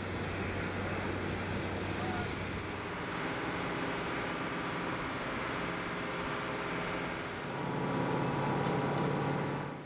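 Steady running of cargo-loading ground equipment engines: a low mechanical hum that shifts in pitch a couple of times, grows louder near the end, then drops off suddenly.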